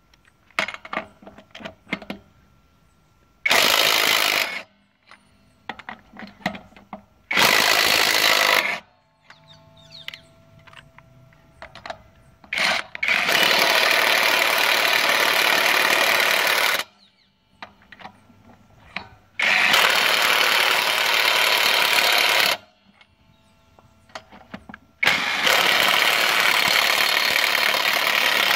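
Brushless 20 V cordless 1/2-inch impact wrench hammering on wheel lug nuts in five bursts: two short ones of about a second, then three longer ones of about three seconds each. Small clicks and knocks between the bursts.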